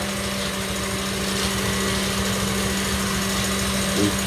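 KitchenAid Artisan stand mixer running at a fast speed, its whisk beating egg whites into a foam; a steady motor hum that holds one pitch.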